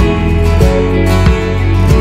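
Background music led by strummed acoustic guitar, with a steady beat.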